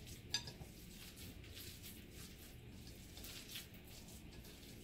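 Hand mixing and squeezing a moist dough of grated carrot, oats and corn flour in a ceramic bowl: faint, soft, irregular squishing strokes, with one sharp click about a third of a second in.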